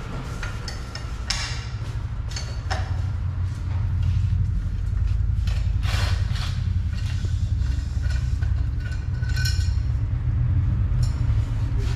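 Scattered metallic clinks and knocks, as of a metal shipping-crate frame being handled, over a steady low rumble.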